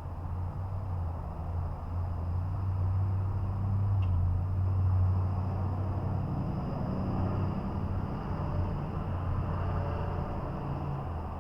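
Low rumble of downtown street traffic, a passing vehicle swelling to its loudest about five seconds in and then easing off, with faint steady high tones underneath.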